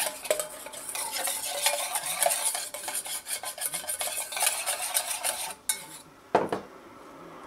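Wire whisk beating quickly against a stainless steel bowl, rattling as it whisks guar gum into ferrous acetate liquid to thicken it into a paste. The whisking stops about five and a half seconds in, and a single knock follows about a second later.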